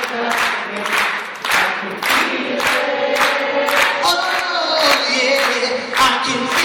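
A group of voices singing together a cappella, with sharp hand claps keeping time at just under two a second.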